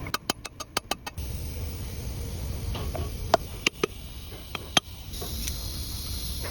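Sharp metallic clicks and knocks from swing motor parts being handled and fitted: a quick run of about eight clicks in the first second, then a few separate knocks around the middle, over a low steady hum.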